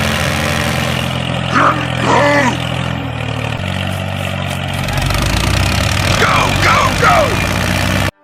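A motor running steadily, with a change in its low hum about three and a half seconds in, and a couple of short voice-like calls over it around two seconds and near the end; it cuts off suddenly just before the end.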